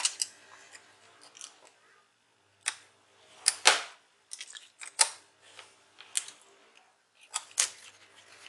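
Scattered light clicks and short rustles from a replacement laptop keyboard being handled: about eight separate knocks, the loudest pair about three and a half seconds in, with quiet gaps between.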